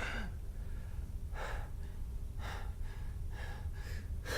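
A man breathing hard in short, airy gasps, about one a second, over a low steady hum.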